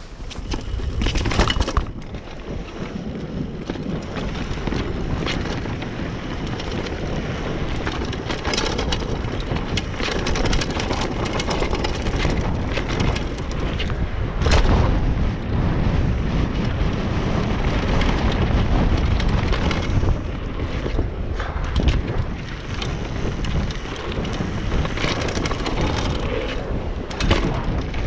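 Downhill mountain bike ridden fast over a dirt forest trail: a steady low rumble of tyres on dirt and wind on the microphone, broken by rattles and knocks as the bike hits bumps, with a sharp knock about halfway through.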